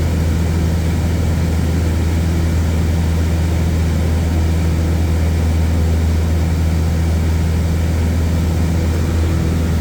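Propeller airplane's engine running steadily in flight: a loud, even, low drone with propeller and air noise.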